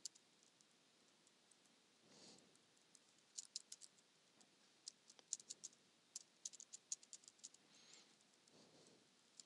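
Faint typing on a computer keyboard: a few short runs of quick keystrokes.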